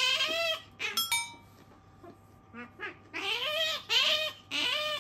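Asian small-clawed otter giving high squeaky calls that rise and fall in pitch, one at the start and three in quick succession near the end, begging for a piece of bread held above it. A brief clink about a second in.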